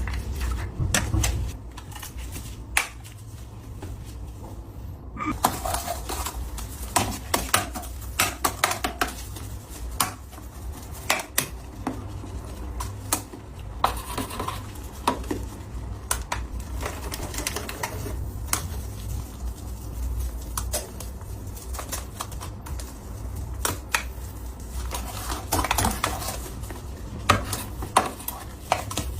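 Small objects being handled and set down: an irregular run of clicks, taps and light clatter over a low steady hum, briefly quieter a few seconds in.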